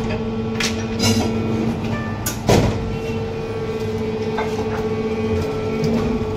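Plastic injection moulding machine running with a steady hum, with sharp knocks and clacks as moulded parts are pulled from the mould and handled; the loudest knock comes about two and a half seconds in.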